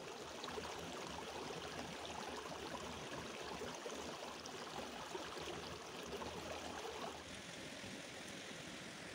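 Shallow mountain stream babbling over stones. About seven seconds in it drops to a quieter, steady hiss.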